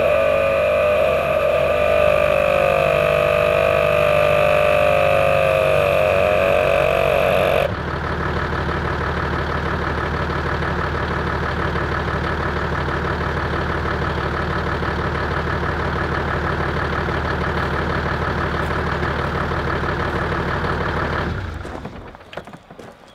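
ARB twin air compressor running steadily, a dense rapid pulsing over the idling engine, while inflating a 4WD's tyres from off-road to road pressure. Its sound changes abruptly about eight seconds in, and it stops about 21 seconds in, followed by a few clicks.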